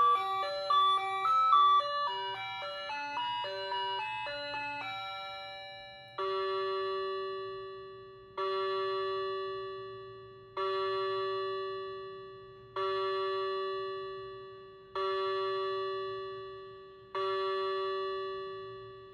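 Ajanta quartz wall clock's electronic hourly chime: a short tinkling melody that ends about five seconds in, followed by the hour strikes, one bell tone every two seconds or so, each dying away before the next, six strikes in all.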